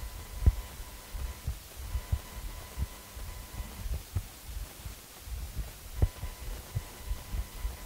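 Irregular low, dull thumps, several a second, with two sharper knocks, one about half a second in and one about six seconds in, over a faint steady high tone.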